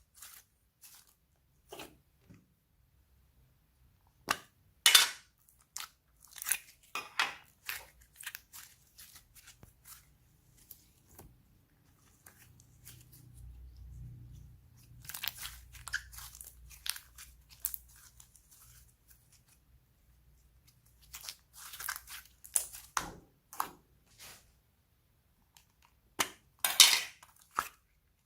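Slime being kneaded and mixed by hand, making clusters of crunchy, crackling clicks and pops with quiet gaps between them.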